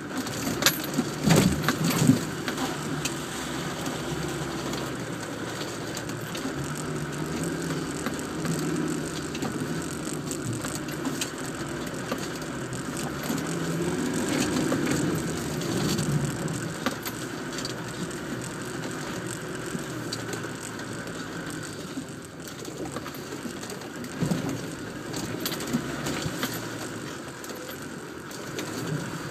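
Land Rover Defender's engine running and pulling over rough, muddy ground, heard from inside the cab, its note rising and falling. The body and loose fittings knock and rattle over the bumps throughout, and the loudest knocks come about a second or two in.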